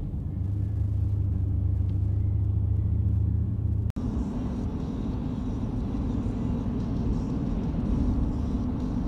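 Steady low rumble of a pickup truck driving, heard from inside the cab. About four seconds in it cuts off abruptly and a different steady road drone takes over.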